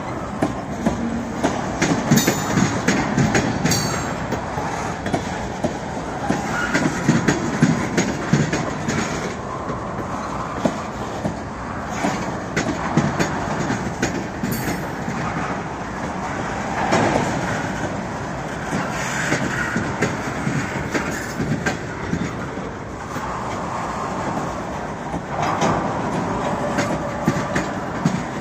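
A freight train of tank cars and covered hoppers rolling past close by: a steady rumble with wheels clicking and clattering over rail joints.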